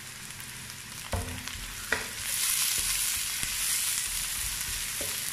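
Sliced onion and chopped garlic sizzling in ghee in a wok. Two knocks come about a second in, then a wooden spatula stirs and scrapes the mixture and the sizzle grows louder.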